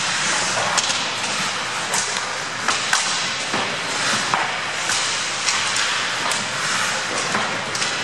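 Ice hockey play: skate blades scraping the ice as a steady hiss, with repeated sharp clacks and thumps of sticks, puck and players against the boards.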